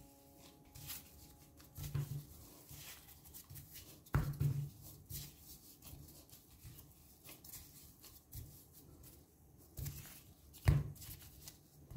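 Kitchen handling sounds of hands and utensils working food: soft rustling and scraping with scattered knocks, the loudest about four seconds in and near the end.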